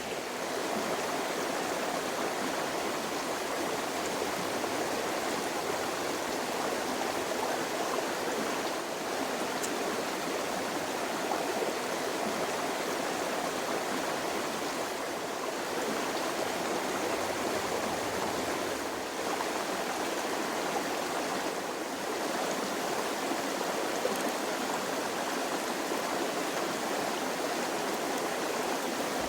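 Creek water flowing, a steady, even sound of running water.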